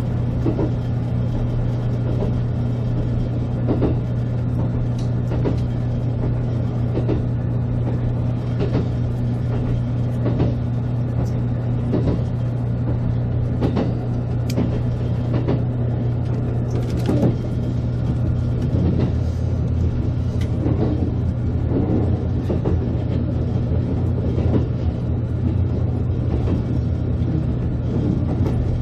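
JR Kyushu 783 series electric limited-express train running, heard from the front of the train: a steady low hum with scattered, irregular clicks and knocks from the wheels on the track.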